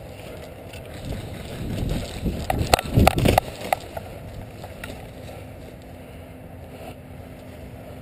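Footsteps rustling and crunching through dry fallen leaves, with a low rumble on the microphone that is loudest about two to three seconds in. A few sharp clicks sound around the middle.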